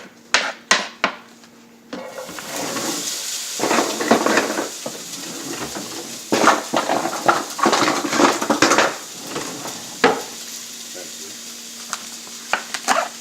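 A few sharp knocks on a pan, then diced onions going into hot oil and sizzling steadily from about two seconds in, while a utensil stirs and scrapes them around the pan.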